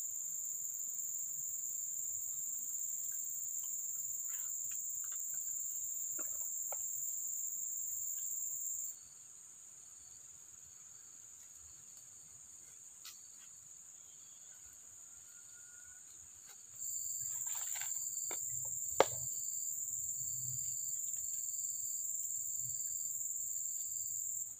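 Steady, high-pitched buzzing of insects, which stops abruptly about nine seconds in and comes back some eight seconds later. Near the end there are faint regular pips, a few light clicks and one sharp tap.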